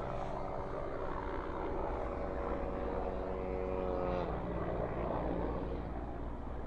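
2.4-litre turbodiesel engine of a JMC Yusheng pulling steadily at low revs in low-range four-wheel drive, its note dropping in pitch about four seconds in as the revs fall.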